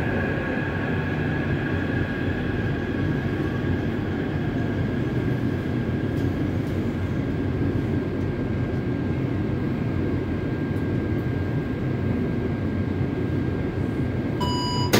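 Inside a Taipei Metro C371 train with IGBT-VVVF traction as it slows to a stop at a station: a dense, steady cabin rumble with a high whine, while falling inverter tones fade out in the first seconds. Near the end the door chime starts beeping.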